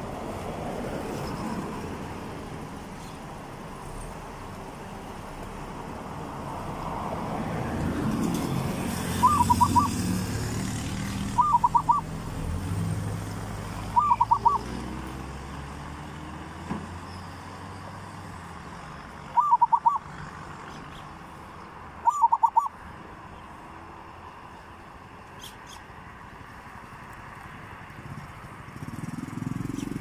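Zebra dove cooing: five short, rippling coo phrases a few seconds apart, over a low background rumble that swells and fades.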